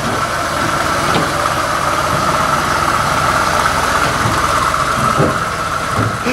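Dodge Ram pickup's engine running at a low idle as the truck creeps forward off a drive-on lift, with a few short low thumps in the last second and a half.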